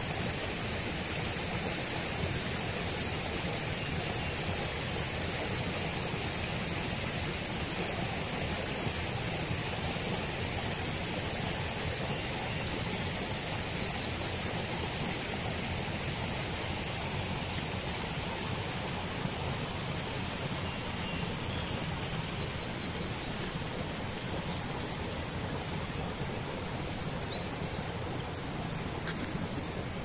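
Shallow stream flowing steadily over stones, a continuous rushing water sound, with a few faint, short, high chirps now and then.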